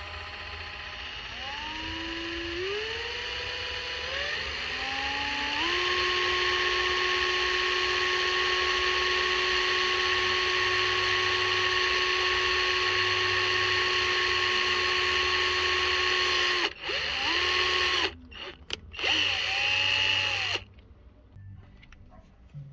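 Power drill drilling a hole in a seat belt retractor's spring. The motor whine climbs in pitch in steps over the first few seconds, holds steady for about ten seconds, stops, then gives a few short bursts before cutting off near the end.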